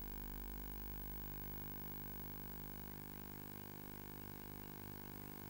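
Steady electrical hum with a faint hiss, the background noise of the film's soundtrack; nothing else stands out.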